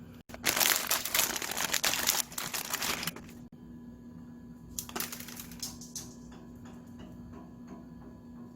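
Crinkling and crushing of a plastic instant-ramen packet being handled, loudest for about three seconds near the start, with a shorter burst about five seconds in and a few light clicks afterwards.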